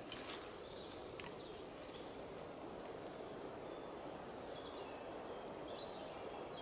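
Forest ambience: a steady rushing background noise, with a sharp click near the start and a few faint, short bird chirps in the second half.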